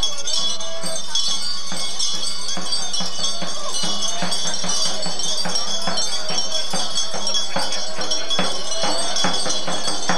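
Continuous metallic jingling and rattling made up of many short, sharp strokes, with a few voices underneath.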